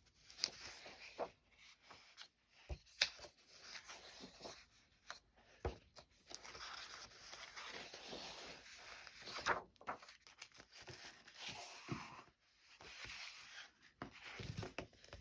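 Paper rustling and crinkling as vintage paper doll books and loose sheets are handled, with scattered light taps and clicks.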